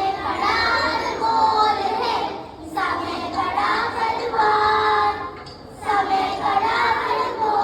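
A group of children singing together, in phrases of two to three seconds with short breaks between them.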